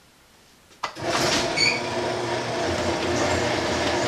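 A sharp click about a second in, then a garage door opener's motor running and the door rolling up with a steady rumble and hum. A brief high squeak or beep comes just after it starts.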